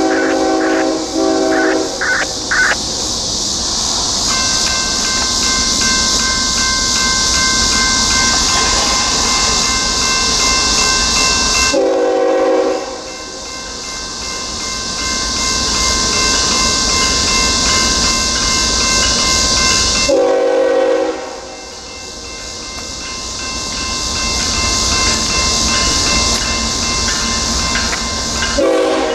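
A diesel locomotive's horn blows several blasts as the Union Pacific freight approaches: two close together at the start, another about twelve seconds in, one near twenty seconds, and one at the very end. From about four seconds in, the crossing's General Signals Type 2 electronic bell rings steadily. A steady high hiss lies underneath.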